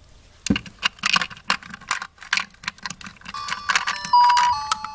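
Plastic dolls and toy furniture being handled, clattering and knocking. From about three seconds in, an electronic toy begins playing a beeping tune of steady notes that step up and down in pitch.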